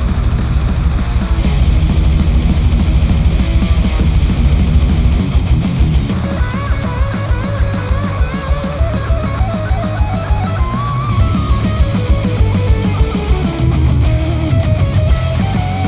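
Heavy rock instrumental music with electric guitar and drum kit, played through headphones and picked up by measurement microphones. A melodic lead line comes in about six seconds in over the drums.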